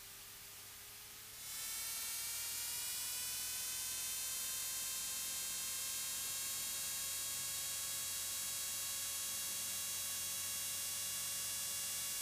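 Jabiru 3300 six-cylinder engine and propeller at takeoff power, heard through the cockpit intercom as a steady buzzing hum. About a second and a half in it grows louder, then rises slowly in pitch as the throttle comes in for the takeoff run and holds steady.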